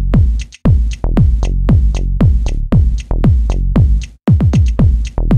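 Electronic dance music with a steady kick drum, about two beats a second, cutting out briefly about half a second in and again about four seconds in.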